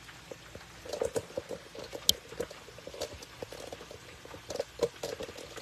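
Unbreaded chicken wings deep-frying in a pot of hot oil, the oil bubbling and crackling with irregular small pops, with a few light knocks.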